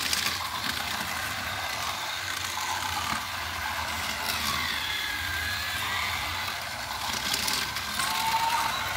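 Battery-powered toy trains running on plastic track: a steady whir from the Thomas engine's small electric motor, with the Lightning McQueen train running at the same time.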